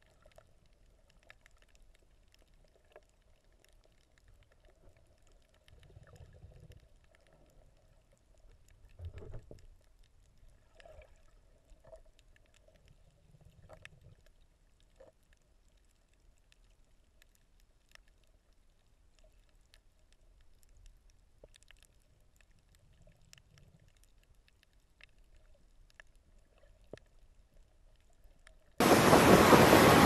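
Near silence from underwater: faint scattered ticks and a few soft, low, muffled thumps. About a second before the end, loud wind buffeting on the microphone cuts in suddenly.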